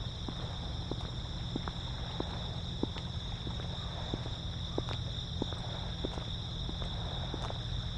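Steady, unbroken high-pitched chirring of insects, over a low rumble of wind on the microphone, with scattered faint clicks.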